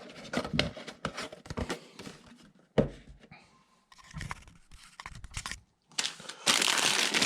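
Handling of Lego set packaging: scattered light taps and rustles, then from about six and a half seconds a loud, continuous crinkling of the set's plastic parts bags.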